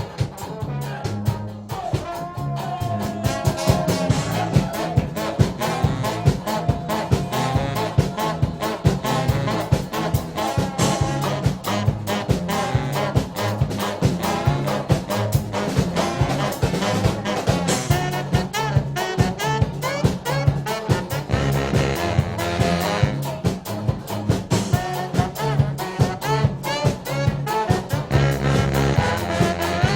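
Brass band playing an upbeat, swing-like tune, with horns carrying the melody over a low bass line and a steady drum beat.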